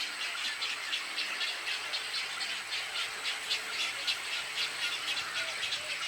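Egret chicks begging to be fed: a fast, even ticking chatter, about five strokes a second, over a steady hiss.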